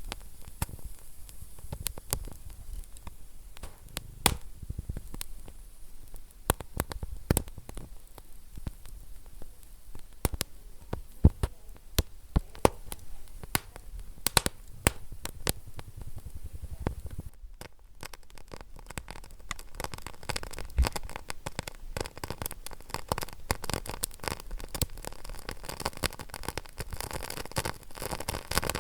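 Wood fire crackling in a fireplace, with irregular sharp pops over a low steady hiss. A little past halfway the hiss briefly drops out, and then the crackling turns denser and quicker.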